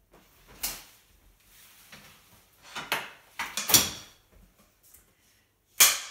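Rustling and a few knocks as an umbrella is closed and put aside and a clapperboard is picked up, then near the end one sharp crack of a film clapperboard snapping shut.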